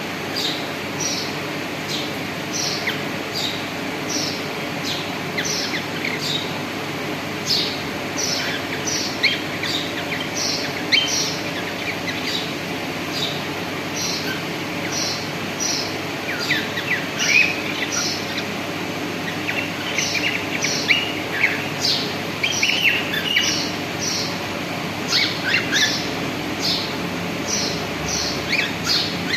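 Cockatiels chirping: a steady run of short, high, downward-sliding chirps about once or twice a second, joined from about halfway by lower, quicker chattering calls, over a steady low background noise.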